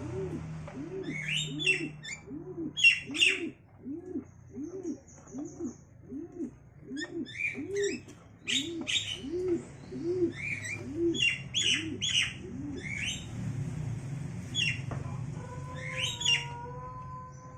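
Javan mynas giving harsh chirping calls in short bursts over a steady run of low, evenly spaced cooing notes from pigeons, about one and a bit per second, which stops about three quarters of the way through. Near the end a drawn-out whine comes in.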